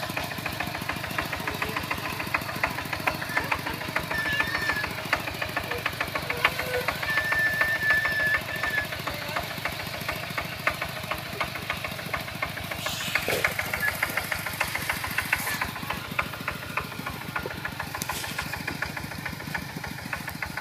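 Kubota single-cylinder diesel engine of a two-wheel walking tractor running steadily as it pulls a disc plough, with a fast, even knocking beat.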